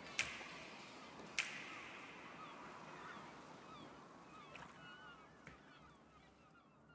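Faint bird chirps over low background noise, with two sharp clicks in the first second and a half; the sound fades out near the end.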